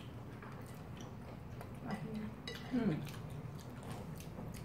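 Eating sounds at close range: chewing and slurping of noodles, with small clicks of chopsticks against bowls, and a brief falling vocal 'mm' about three seconds in.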